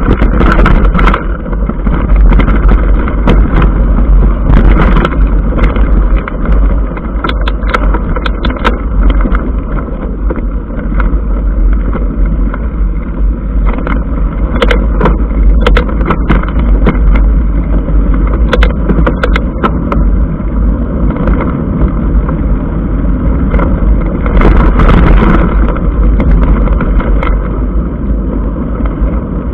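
Ride-camera sound of a mountain bike on a dirt and gravel track: a loud, steady rumble of vibration and wind on the microphone, with tyres on gravel and frequent sharp rattles and clicks from the bike over the bumps.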